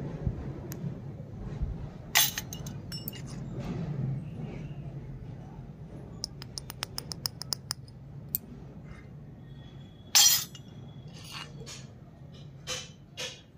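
Small stainless-steel miniature toy utensils clinking and tapping against each other as they are handled. There is a sharp clink about two seconds in and another about ten seconds in, with a quick run of light taps, about six a second, between them.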